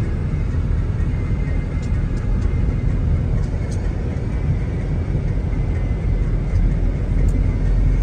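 Steady low road rumble of tyres and engine heard from inside a moving car's cabin, growing a little louder near the end.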